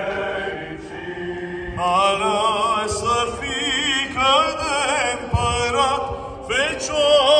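Psaltic choir singing Byzantine chant in the open air. A held note opens it, and about two seconds in the voices enter with an ornamented, wavering melody over a steady drone.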